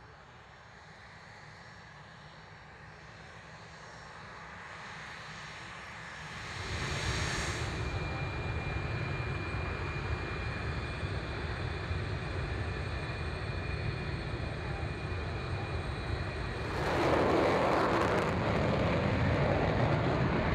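Military jet engines running on the ground, a thin turbine whine over a rushing noise that grows steadily louder. It jumps in loudness about six and a half seconds in, and again with a harsher, wider rush about seventeen seconds in.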